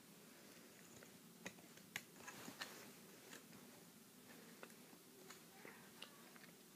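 Near silence with a few faint, irregular clicks and ticks as a plastic hook lifts rubber bands over the pegs of a plastic loom board.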